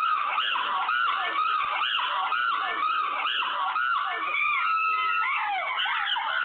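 Recorded chimpanzee screeching played over a phone line: a steady run of overlapping rising-and-falling shrieks, several a second.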